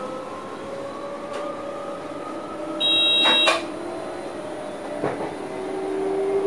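Electric traction motors of an NS Sprinter Lighttrain whining in a slowly rising pitch as the train gathers speed, over steady rail noise. About three seconds in, a loud electronic warning tone sounds in the cab for under a second and ends with a click.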